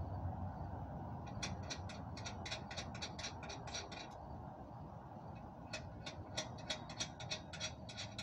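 A ratchet clicking rapidly, about seven clicks a second, in two runs of a few seconds with a short pause between.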